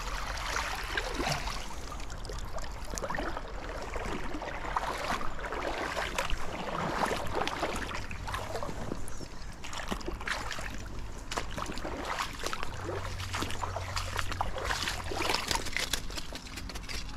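Irregular splashing and sloshing of shallow stream water as a hooked chub is drawn to the surface and netted, and the angler wades.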